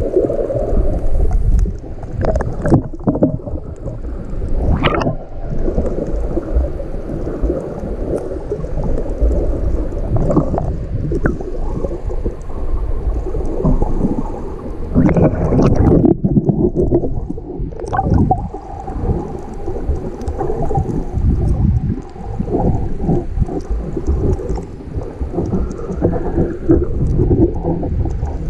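Muffled underwater water noise from a camera held below the surface among snorkelers: a continuous low rumble with gurgling bubbles and a few brief splashes, the strongest about fifteen seconds in.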